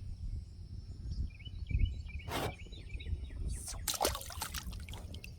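Wind rumbling on the microphone, with water splashing and dripping in short bursts about two seconds in and again around four seconds in, and a small bird chirping faintly.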